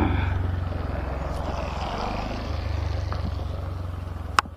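Motorcycle engine running at low speed with a steady low beat that slowly gets quieter. A single sharp click comes near the end.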